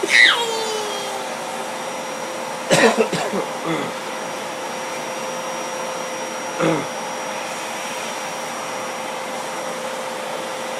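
Vacuum cleaner motor running steadily, with a high falling squeal about the start and two short louder bursts over it, about three and seven seconds in.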